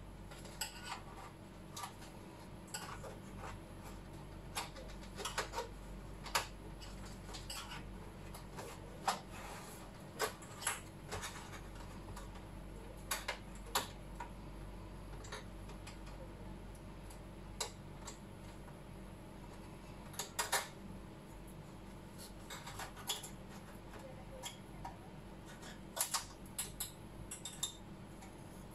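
Irregular light clicks and metallic clinks of aluminium LED backlight strips and a small tool being handled against the sheet-metal backplate of an LCD TV during strip replacement. The loudest knocks come in clusters about two-thirds of the way through and near the end.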